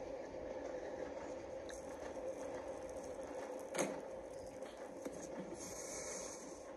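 Film soundtrack played through a screen's speaker and picked up in the room: a steady, muffled background with no dialogue, broken by one sharp click about four seconds in.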